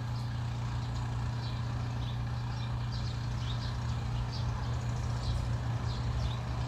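Steady low mechanical hum, like a running motor or engine, with short high chirps of small birds now and then.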